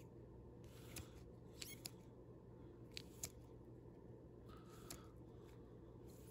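Faint swishes and clicks of plastic-sleeved Pokémon cards slid one at a time from the front of a held stack to the back, a few separate strokes with a sharper click about three seconds in, over a steady low hum.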